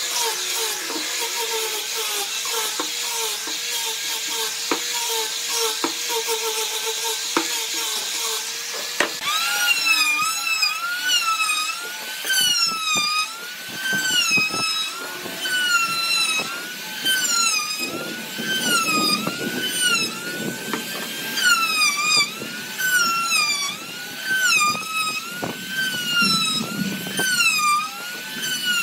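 Small angle grinder with a sanding disc running steadily against the edge of a wooden ring. About nine seconds in, a compact trim router takes over with a high whine whose pitch dips and recovers about once a second as it cuts along the ring's edge.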